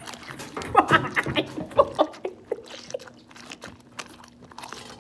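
Wet crunching and chewing as a whole pickle is bitten and eaten in big, fast mouthfuls, with short bursts of stifled laughter about a second in.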